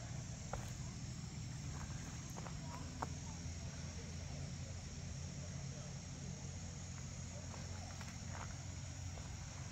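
Steady chorus of insects in summer vegetation, a continuous high hum, over a steady low rumble, with a few soft ticks and one sharper click about three seconds in.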